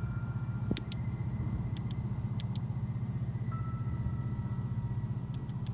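A steady low rumble with a fast, even flutter, with a few faint short clicks over it.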